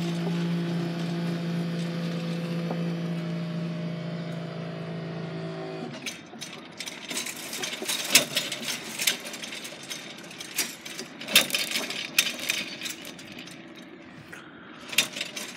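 Level crossing barrier mechanism humming steadily as the boom rises, cutting off about six seconds in when the barrier reaches fully up. Scattered light clicks and clinks follow.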